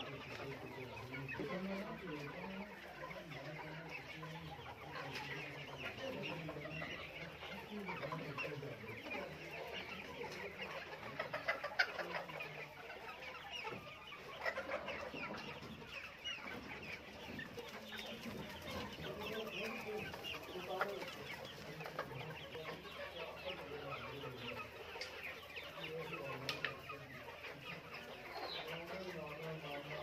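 A flock of Australorp hens clucking, many birds calling over one another continuously, with a few sharp clicks about midway.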